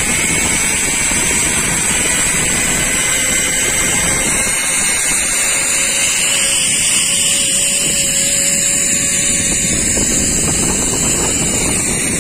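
Zip-line trolley running down a steel cable: a steady, loud whirring rush, with a faint whine that rises slightly in pitch midway.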